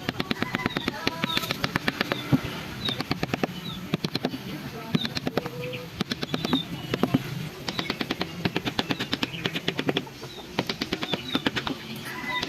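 Rapid sharp taps in runs of several strikes a second with short pauses, from wood-carving tools striking wood, with a bird chirping briefly now and then.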